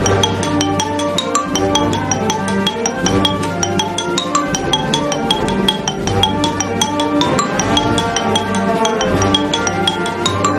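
Wooden-bar marimba played with two mallets: quick runs of struck notes, several a second, in a lively tune. Held low bass notes run underneath.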